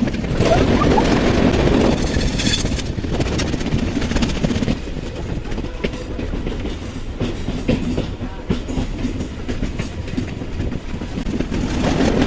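Train running along the track: a steady rumble with the wheels clicking over the rails, louder for the first couple of seconds.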